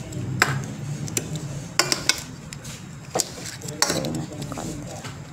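Several sharp, irregular clinks and knocks against a stainless steel mixing bowl as raw chicken pieces in adobo marinade are handled and mixed.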